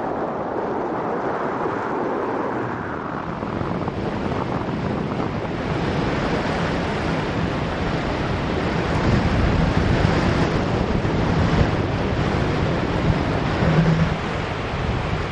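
Wind rushing and buffeting over the camera microphone of a paraglider pilot in the air, a steady rumbling noise. It grows stronger about six seconds in.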